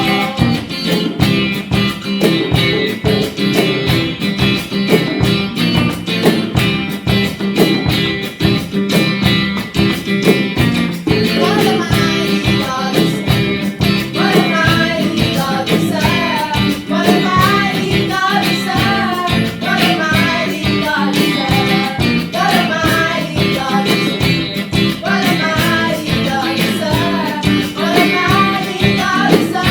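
Music: an upbeat song with guitar and a steady beat, with a voice singing the melody from about eleven seconds in.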